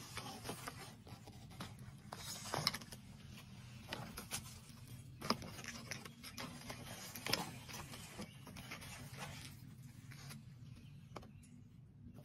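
Rustling and scraping among garden mulch, dry leaves and weeds, with a few sharper scrapes about two and a half, five and seven seconds in, over a steady low hum.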